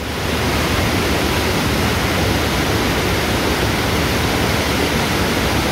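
Steady rushing of water from a sheet-wave surf simulator, a thin fast layer of pumped water streaming up the ride's slope under a bodyboarder.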